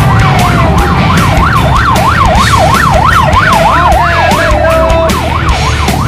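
Electronic yelp siren, its pitch sweeping rapidly up and down about three times a second, over a loud low rumble with regular thuds.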